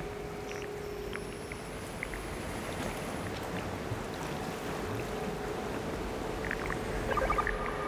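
Ambient electronic soundscape: a steady noisy wash under one held tone, with scattered faint clicks and a brief cluster of short higher tones and clicks near the end.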